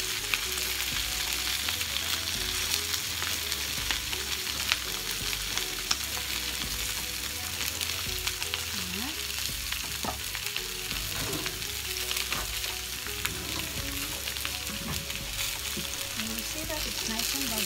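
Salmon fillets and sliced boiled potatoes sizzling steadily in olive oil in a grill pan, with a few light clicks of a spatula and fork against the pan.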